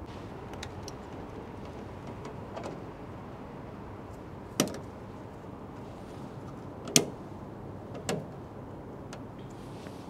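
Sharp plastic clicks of wiring plugs and a replacement control board being clipped into place in an air-conditioning outdoor unit: three clear clicks a second or two apart, the loudest about seven seconds in, with fainter ticks between, over a steady faint hiss.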